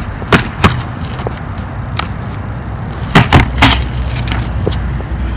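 Sharp snaps and cracks as a cardboard shipping box is pried open with a plastic trim pry tool: two early, then three in quick succession a little past the middle, over a steady low rumble.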